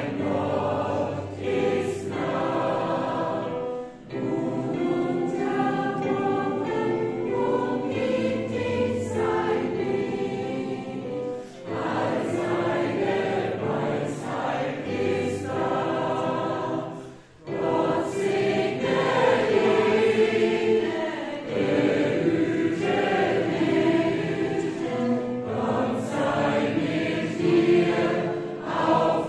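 Mixed gospel choir of men and women singing in German, with short breaks between phrases about 4, 11 and 17 seconds in.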